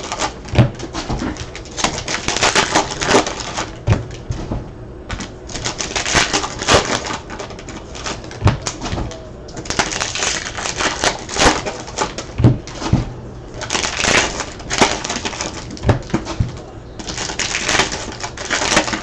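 Trading cards being handled and flipped through, with rapid clicking and rustling as cards slide and snap over one another and a short thump every few seconds as cards are set down.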